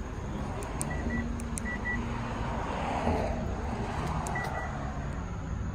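Short high electronic beeps in pairs, three times, over a steady low rumble of traffic outdoors.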